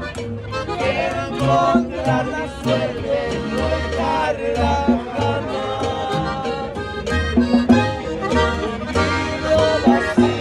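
Live norteño-style music played at the table: a man singing over a strummed bajo sexto, with held melody notes and a bouncing low bass line underneath.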